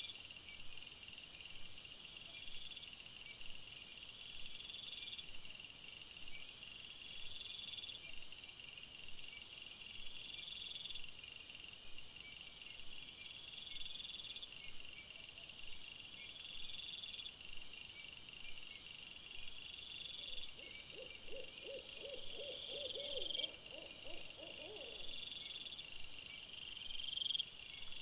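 Night insects chirping in high, evenly repeating pulsed trills. About two-thirds of the way through, a lower wavering call rises and falls rapidly for about four seconds.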